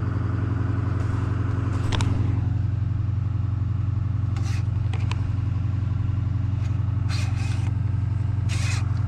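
Engine idling with a steady low hum, and several short scrapes over it from an engine-oil dipstick being drawn out, wiped and pushed back in.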